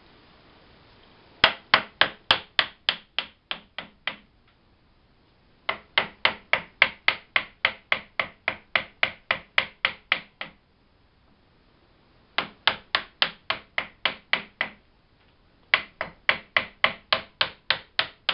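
Backsaw making shallow relief cuts in a dry hardwood cane blank: quick, short, rhythmic cutting strokes, about four a second, in four runs with brief pauses between.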